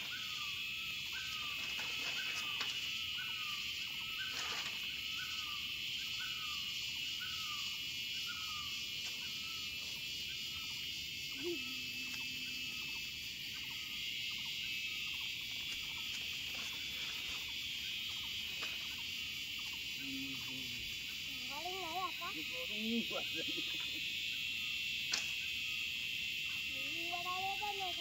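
Steady high-pitched insect chorus, crickets or cicadas, with rows of short repeated bird chirps in the first half and several bird calls sliding up and down in the second half.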